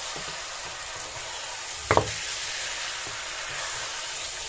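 Beef trotters sizzling as they fry in spiced masala in a steel pot, stirred with a spoon. About two seconds in comes one sharp knock, the loudest sound, typical of the spoon striking the pot.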